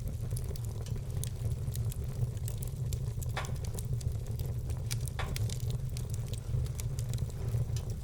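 Wood fire crackling, with many small snapping clicks and two louder pops about three and a half and five seconds in, over a low steady rumble.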